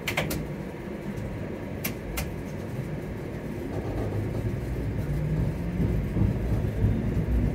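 Low rumble and hum of a streetcar running on its track, heard from inside the car, growing louder in the second half. A few sharp clicks or rattles come in the first couple of seconds.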